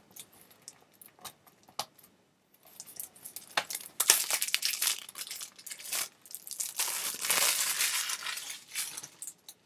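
Plastic shrink-wrap being torn and crinkled off a Blu-ray case. A few light clicks and taps at first, then a dense crinkling rustle from about two and a half seconds in, loudest in the second half.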